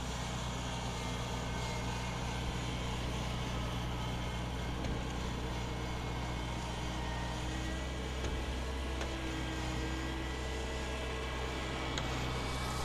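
Kubota tracked rice combine harvester's diesel engine running steadily as the machine crawls on its rubber tracks up onto a dirt track, with a low, even hum.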